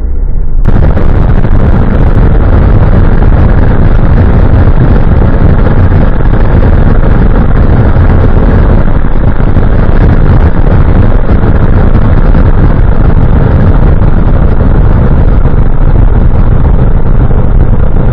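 Loud, steady engine and road noise inside a Lotus Esprit's cabin as it cruises at speed, picked up by a dashcam. The noise jumps in suddenly just under a second in and then holds even.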